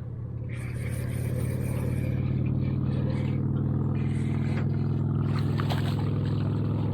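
Boat motor running steadily, with a low pitched hum that builds over the first couple of seconds and then holds.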